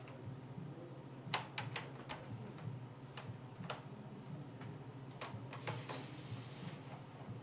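A few light knocks and creaks from a wooden chair with a rush seat as a barefoot person climbs up and crouches on it. The knocks come in a small cluster about a second and a half in, once near the middle, and again in a cluster near the end, over a faint steady hum.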